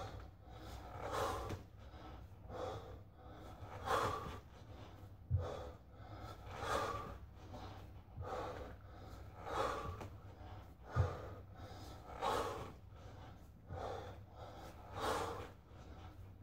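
A man breathing hard in rhythm with kettlebell snatches, one breath with each rep, about every one and a half seconds. A few dull low thuds fall among the breaths.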